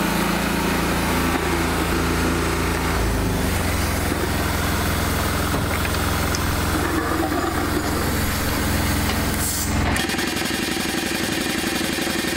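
A heavy engine idling steadily. About ten seconds in the sound changes abruptly to another steady engine hum with a fine, even pulse.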